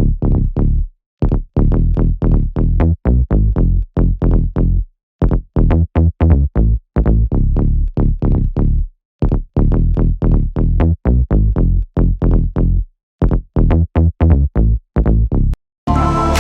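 Electronic dance music with a drum-machine beat, chopped into short blocks separated by sudden brief silences.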